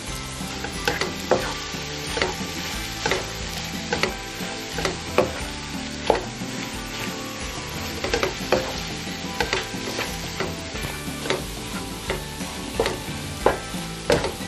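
Spatula stirring and scraping spiced soya chunks around a nonstick wok, the strokes coming irregularly about once or twice a second over a steady sizzle of frying. The chunks are being fried dry in the spiced oil, stirred constantly so they don't catch on the bottom of the pan.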